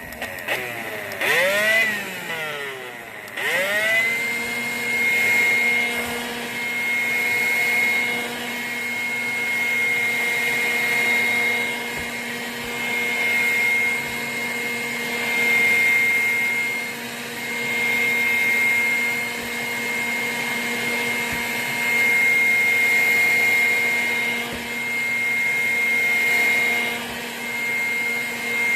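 Vacuum cleaner motor starting, winding up and back down once, then starting again about four seconds in and running steadily with a high whine, its loudness swelling and fading every few seconds.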